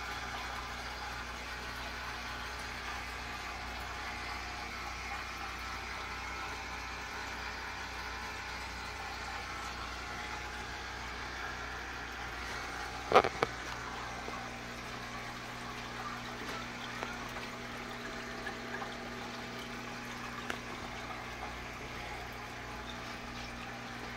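Aquarium filter running: a steady trickle of water with a low hum from its pump. A single sharp knock about halfway through.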